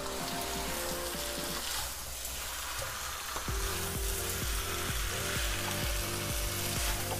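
Chicken in thick masala sizzling in a nonstick kadhai while a wooden spatula stirs and turns it. Background music with a beat runs underneath, its bass pulses coming in about three and a half seconds in.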